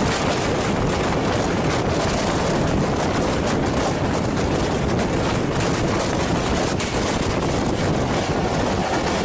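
Passenger train running at speed, heard from an open coach door: a steady rush of wind on the microphone over the running noise of the train.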